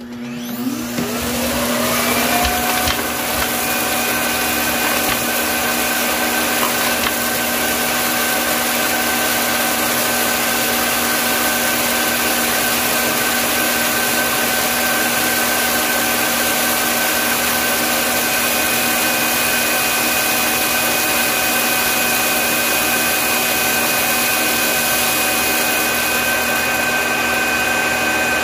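Roborock S7 auto-empty dock's suction motor spinning up to a loud, steady whine over the first couple of seconds, then running on as it sucks the debris out of the robot's dustbin.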